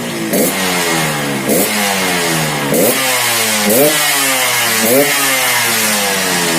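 Yamaha RX-King 135cc single-cylinder two-stroke engine revved in five quick throttle blips, about one a second, each rising sharply and then dying slowly back, through a new unbored stock-style exhaust fitted with a modified silencer insert. The carburettor is set rich, which gives it a slightly gurgling, snoring tone.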